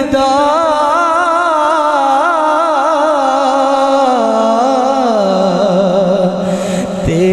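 A man singing a naat into a microphone: one long, drawn-out, wavering phrase on a held vowel. It steps down in pitch twice, then breaks briefly near the end before the next phrase begins.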